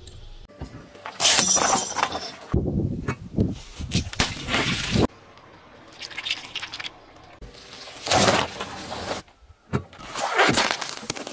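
Small objects being crushed under a car tyre: several separate bursts of cracking, crunching and popping, with quieter stretches of the tyre rolling between them.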